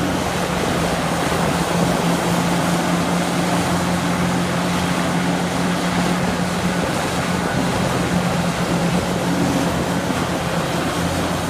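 Large Caterpillar hydraulic mining excavator's diesel engine running at a steady, loud drone as it loads soil into a dump truck.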